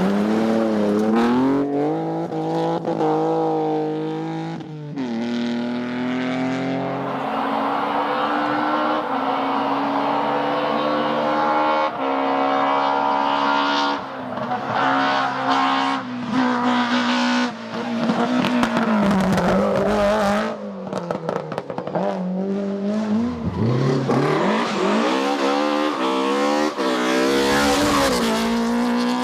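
Rally car engine revving hard, its pitch climbing through each gear and dropping sharply at the shifts and under braking, again and again, with a few short sharp cracks along the way.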